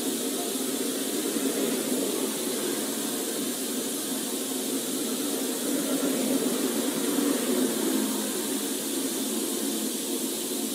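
Steady road-side noise of highway traffic and a running vehicle, heard as a hiss over a low rumble, swelling slightly about six seconds in.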